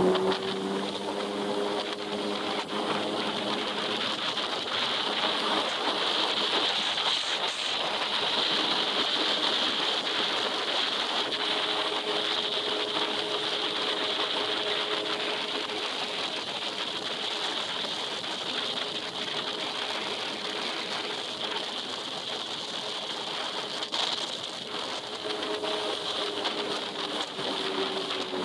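Yamaha personal watercraft engine running at slow speed, about 5 mph, with a steady drone under a hiss of water and wind. The engine's pitch dips slightly near the end.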